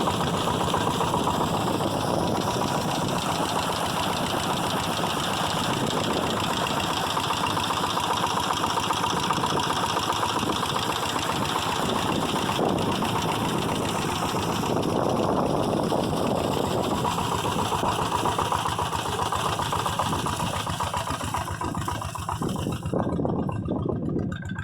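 A motor or engine running steadily with a fast even chug, easing off near the end.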